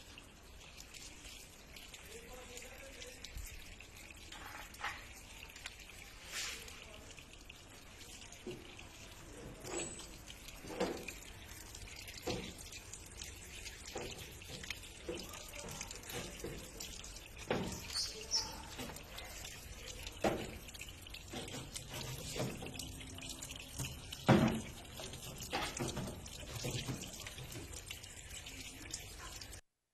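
Water running from a supply pipe and splashing into a tank, with a steady rush and scattered drips and splashes.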